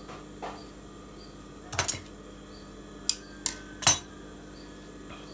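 Sharp clicks and knocks of small hard objects handled on a worktable: a quick group just under two seconds in, then three more near the three-to-four-second mark, the last the loudest.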